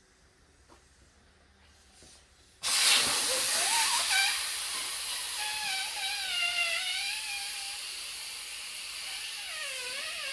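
Air rushing out of an ATV tire through the valve stem as the valve core is pulled and shoots out: a sudden loud hiss about two and a half seconds in, slowly fading, with a wavering whistle over it.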